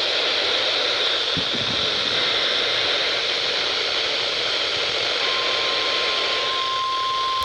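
Weather radio receiver hissing with static. About five seconds in, a single steady high alert tone, the NOAA Weather Radio 1050 Hz warning tone, comes in over the static.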